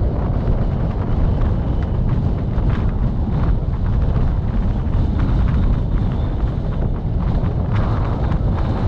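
Wind blowing hard across the microphone in gusts over steady low vehicle road and engine noise, heard while travelling.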